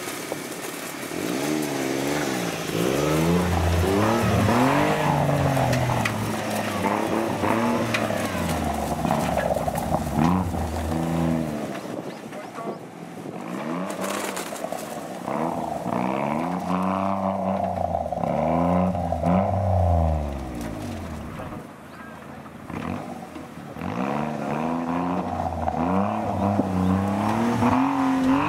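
Suzuki Jimny's 660 cc three-cylinder turbo engine revving up and down under load as it crawls over steep, rutted dirt. The revs rise and fall in several separate bursts, with short lulls at lower revs between them.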